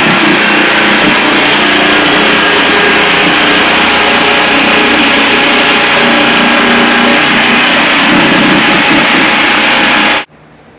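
Handheld electric cutting tool running under load as it cuts a channel into a wall along a marked line, a loud, steady noise that cuts off suddenly near the end.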